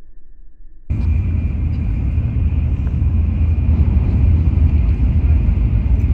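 Steady low rumble of a moving vehicle, with a faint steady high whine over it. It starts abruptly about a second in.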